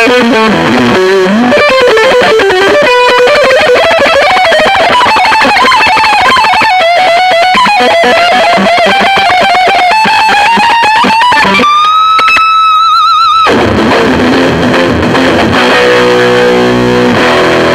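Electric guitar played through a Mesa Boogie Recto-Verb 25 all-tube combo on its overdriven channel: a fast lead solo with string bends and vibrato. About 12 seconds in a single high bent note is held with vibrato, and near the end it turns to ringing chords.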